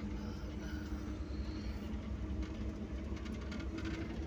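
Interior noise of a moving sleeper bus: a steady low rumble of engine and road, with a faint steady hum.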